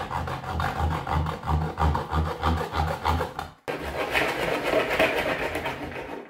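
Hand saw cutting through the injection-moulded plastic of a dustpan at its handle, in back-and-forth strokes about three a second. After a brief pause a little past halfway, the sawing resumes with quicker, denser strokes and stops just before the end.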